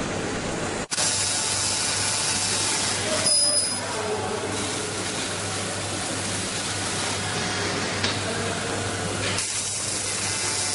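Sheet-metal laser cutting machine at work: a steady hiss with a low hum beneath it, with a short high tone about three seconds in.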